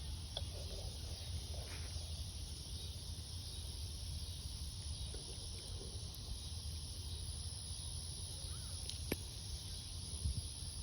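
Steady outdoor background: a low rumble under an even high hiss with a thin high tone. There is one sharp click about nine seconds in and a couple of soft knocks near the end.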